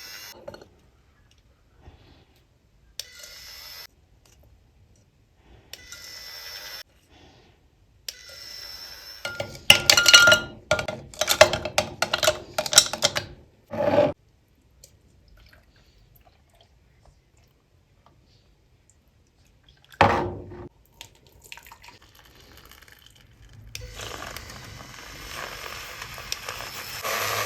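Drink-making sounds with cups and utensils: scattered short clinks and scrapes, then a quick run of hard clinks and knocks a few seconds long, one sharp knock later, and a steady rushing, liquid-like noise building near the end.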